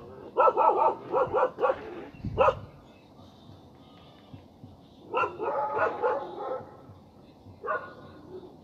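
Stray dogs barking: a quick run of barks in the first two seconds, another run about five seconds in, and a single bark near the end.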